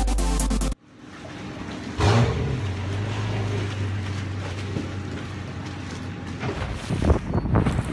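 Yamaha SHO 275 outboard engine starting about two seconds in and settling into a steady low idle.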